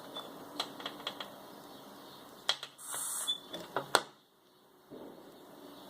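A run of sharp plastic clicks from an underwater camera housing being handled, with a short hiss of air about three seconds in and two loud clicks near four seconds.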